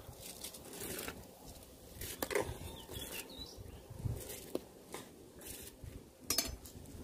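A metal ladle scraping and knocking against a steel bowl and a large metal pot as soaked rice is pushed into boiling water: scattered clicks and clinks over a low rumble.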